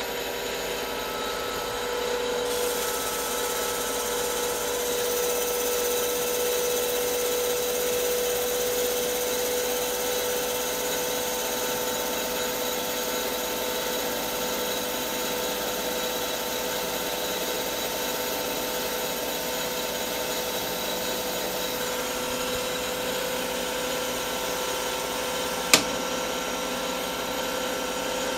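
Lathe spindle running steadily at 1,000 rpm with a constant whine, while a CBN insert takes a light turning cut along a solid tungsten carbide end mill shank. The cut adds a fine hiss from a few seconds in and sounds really nice: the insert is cutting the carbide cleanly. A single sharp click comes near the end.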